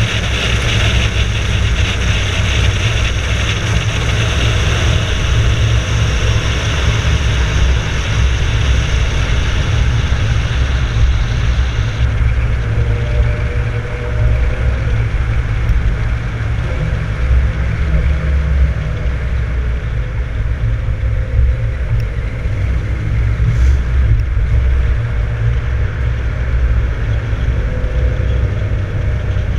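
Mk3 Toyota Supra's 1JZ-GTE VVT-i turbocharged straight-six and exhaust running steadily at cruise, a loud low drone with road noise. A high hiss cuts off abruptly about twelve seconds in.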